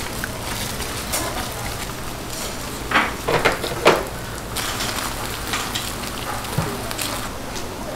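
Sliced canned ham (luncheon meat) frying on a stainless-steel flat griddle, a steady sizzle. Several sharp clacks come about three to four seconds in.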